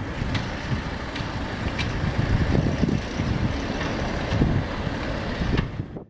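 Road traffic crossing a bridge: a low, uneven rumble from passing cars and bicycles, with scattered sharp clicks and rattles.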